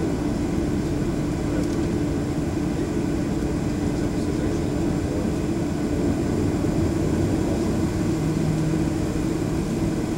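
Steady cabin drone of a Boeing 737's jet engines idling on the ground, heard from inside the cabin: a constant rushing noise with a steady hum, and a second, lower hum joins about eight seconds in.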